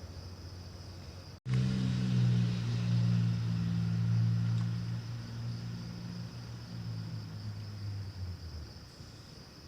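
A low, steady engine hum starts suddenly after a brief dropout about a second and a half in, then fades out near the end. Steady insect trilling runs underneath.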